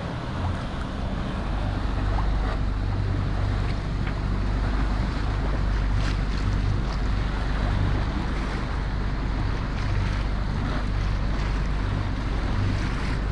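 A boat under way: a steady low engine hum under the wash of water along the hull, with wind buffeting the microphone.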